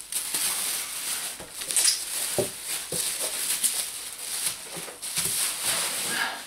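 Plastic bubble wrap rustling and crinkling as it is pulled off a cardboard box, with a few light knocks.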